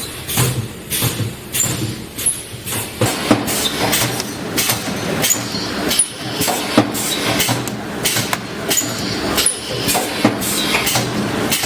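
Automatic wire mesh welding machine running: a quick, regular series of metallic clanks and clicks, roughly three a second.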